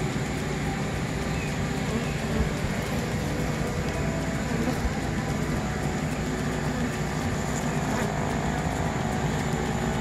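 Feral honey bee colony buzzing inside a hollowed-out tree limb: a steady, dense hum.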